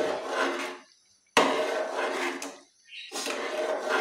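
Spoon scraping around the bottom of a metal pot while stirring thick kheer, in three long strokes, the second starting sharply about a second and a half in.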